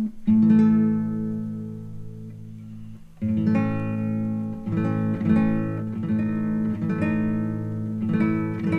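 Background music on acoustic guitar: a chord rings out and fades, then strummed chords pick up again about three seconds in.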